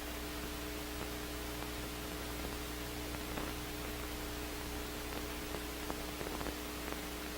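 Steady hiss with a low, even electrical hum: the soundtrack's own background noise, with no other sound over it.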